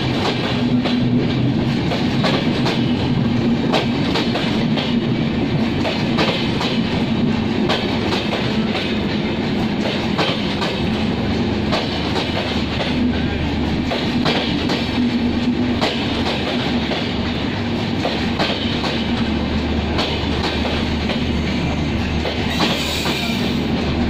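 Passenger coaches of an intercity express train rolling past close by, wheels clattering over the rail joints with a steady rumble.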